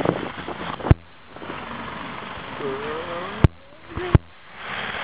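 Isuzu D-Max 3.0 pickup's diesel engine pulling up a snowy slope and passing close by, its note rising for a moment partway through. Three sharp knocks stand out over the steady noise.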